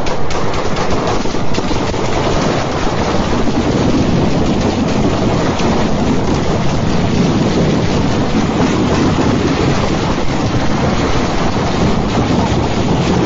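Wind buffeting a phone's microphone, a loud, steady rumbling roar.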